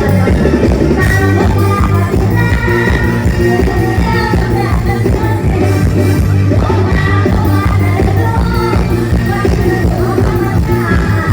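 Live music from a Thai rot hae sound-truck band: a song with a singer over a heavy, steady bass line, played loud through the truck's sound system.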